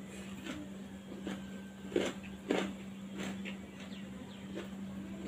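Soft eating sounds of a person eating rice by hand: a few short, wet smacks and clicks of chewing and of fingers working the rice, over a steady low hum.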